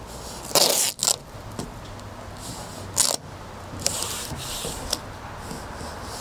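Painter's tape being pulled off the roll and pressed along a canoe's aluminum gunwale: several short ripping pulls, the loudest about half a second in, with quieter ones around three and four seconds.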